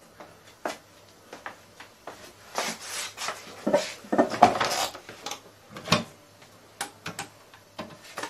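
Handling noise: scattered knocks and clatter, loudest in the middle, then a few sharp clicks near the end as a corded telephone handset is picked up and handled.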